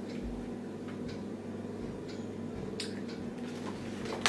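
Quiet room tone with a steady low hum and a couple of faint ticks, then a sharp snap near the end as a hardcover diary is shut.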